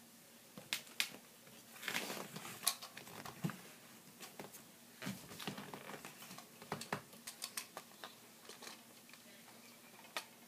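Plastic clicks and knocks of a Nerf Elite Triad blaster and its orange add-on foregrip being handled and fitted together, a scatter of short sharp clacks in two clusters with one more near the end.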